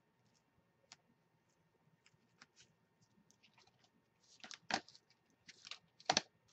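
Clear plastic and paper crinkling and crackling as a clear stamp sheet is handled on a paper mailing envelope. Scattered small clicks at first, then louder crackles about four and a half seconds in and again about six seconds in.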